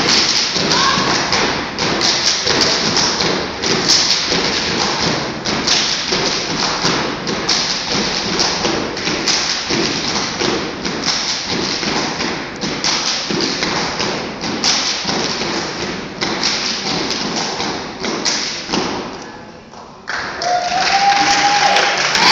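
Step team stepping: a dense, rhythmic run of foot stomps and hand claps. Near the end the stepping stops briefly, then voices shout.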